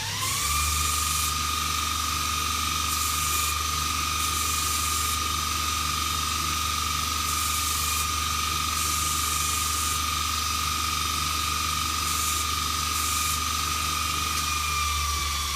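An electric bench grinder spins up with a rising whine, then runs at a steady high whine with a grinding hiss as metal handle pins are ground down. Near the end the whine begins to drop as the machine winds down.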